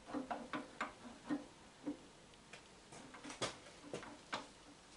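Metal parts of a shaper's gearbox clicking and knocking as they are worked into the main casting by hand: about a dozen light, irregular clicks, some with a short low ring, the sharpest about three and a half seconds in.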